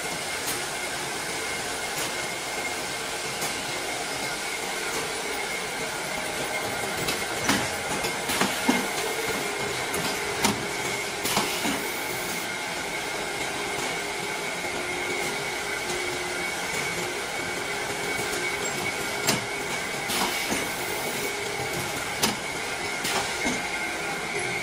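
Automatic shrink-wrapping machine for bottled-water packs running: a steady mechanical hiss with a faint high whine, broken by irregular clacks and knocks from its mechanism, most of them in the middle of the stretch and a few near the end.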